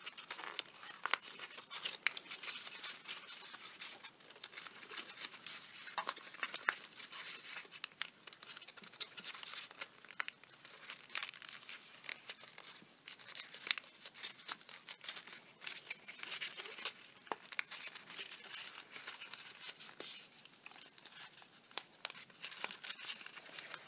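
Origami paper crinkling under the fingers, with many small irregular crackles, as the layered folds of the model are pressed and pinched to sharpen the creases.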